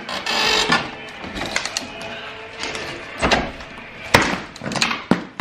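Background music playing, with several sharp knocks in the second half, the loudest about four seconds in.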